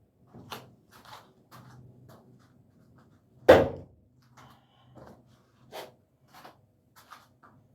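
One loud, sharp thunk about three and a half seconds in, like a thrown knife striking its target, among fainter knocks and handling sounds.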